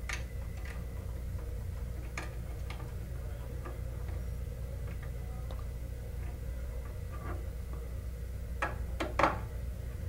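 Light scattered clicks and taps of a small screwdriver and wire working a terminal screw on the Honeywell VISTA 21iP alarm panel's terminal strip, with a louder cluster of clicks near the end. A steady low hum runs underneath.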